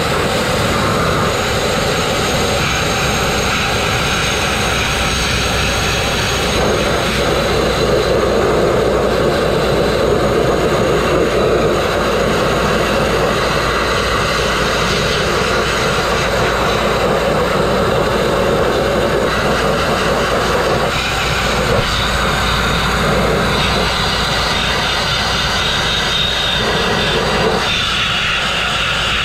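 Grit-blasting nozzle running continuously: a loud, steady rush of compressed air and abrasive grit stripping rust and paint from steel. The tone of the rush shifts slightly now and then.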